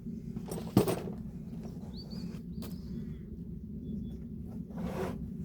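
A few sharp knocks and scrapes as parts of the car's LPG plumbing are handled, the loudest about a second in, over a steady low hum.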